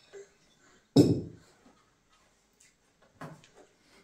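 A single loud thump at a dining table about a second in, dying away quickly, followed by a couple of faint clicks near the end.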